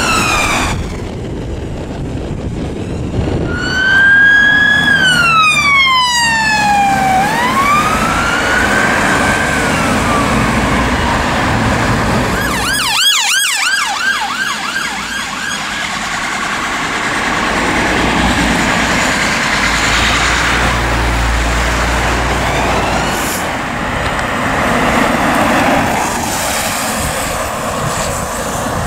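UK emergency vehicle sirens on passing vehicles. First a siren wails slowly down and up over several seconds (a police car), then a fast yelp runs for about two seconds (an ambulance rapid response car). After that there is mostly road traffic noise and a vehicle engine rumble.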